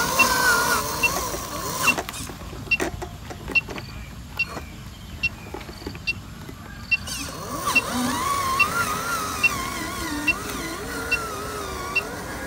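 Small electric geared motor of a homemade RC truck whining as it drives, its pitch wavering with speed. The whine stops for about five seconds in the middle, leaving a few knocks, then starts again. A faint high tick repeats about once a second throughout.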